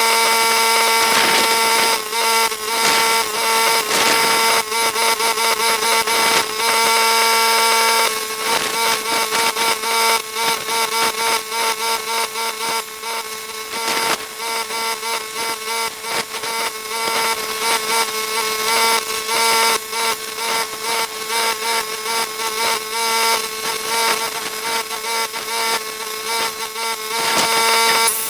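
Angle grinder running on steel with a steady high whine and dense rapid crackle; from about eight seconds in its loudness pulses several times a second as it bites into the metal.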